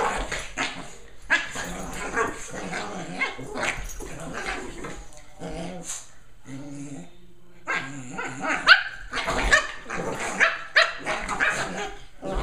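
Two Lhasa Apso puppies play-fighting, growling and giving short barks and yips in irregular bursts, quieter for a couple of seconds in the middle.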